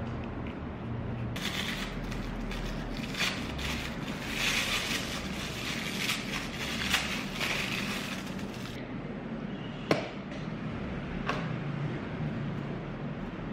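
Clear plastic wrapping crinkling for several seconds as it is pulled off a new roll of thermal label paper. It is followed by two sharp clicks as the paper roll and its plastic roll holder are fitted into the open thermal label printer.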